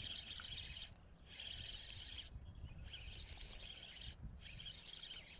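Faint, high-pitched buzzy trills from wildlife, four of them each about a second long with short breaks between, over a low background rumble.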